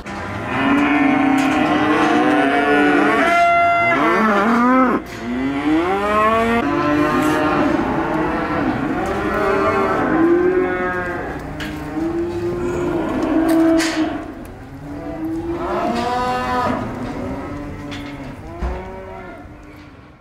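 Several cattle mooing over one another in a continuous chorus of overlapping calls, some high-pitched, with the calls fading away near the end.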